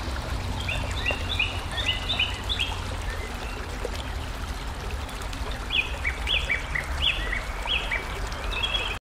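A bird chirping in two quick runs of short, high notes over a steady low rumble. The sound cuts off suddenly near the end.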